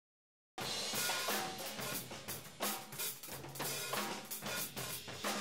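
Drum kit playing a busy pattern of snare and bass drum hits, starting abruptly about half a second in.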